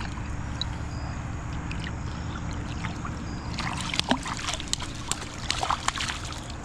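Pool water splashing and sloshing as an arrow is swished around under the surface. The splashing starts about halfway through in quick, irregular splashes and stops shortly before the end, over a steady low background hum.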